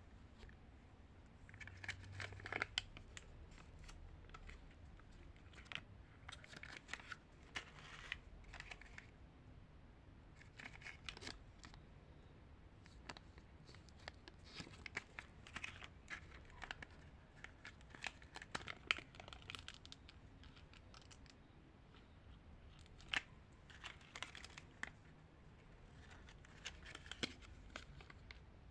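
Candy and chocolate wrappers crinkling and tearing in irregular bursts, with scattered sharp clicks.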